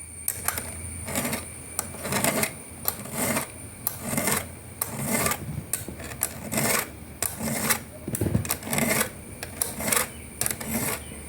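A hand file rasping across a chainsaw chain's cutter teeth in a filing guide frame: repeated short strokes, about two a second.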